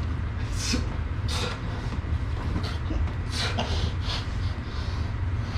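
Arm wrestlers straining mid-match: sharp, hissing breaths forced out several times, over a steady low hum.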